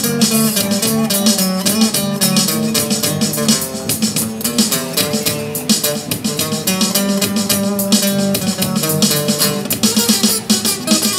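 Amplified acoustic guitar strummed with a steady rhythm over a bass line, an instrumental passage of a live band song played through a PA speaker.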